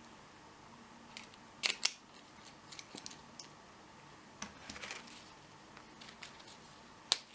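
Scattered light clicks and taps of small hard objects being handled. The loudest are a quick pair about a second and a half in and a single sharp click near the end.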